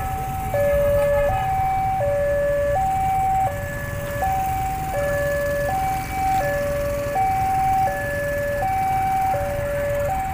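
Railway level-crossing warning alarm sounding a steady two-tone alternation, low and high notes each held for about three quarters of a second, over a low rumble.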